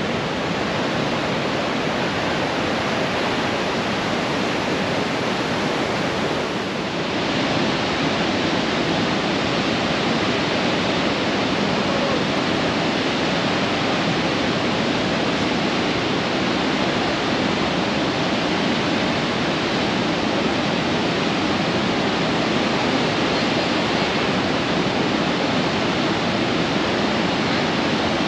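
Steady rush of whitewater from the Niagara River rapids. About seven seconds in it changes to the steady, slightly louder roar of the American Falls pouring over the brink.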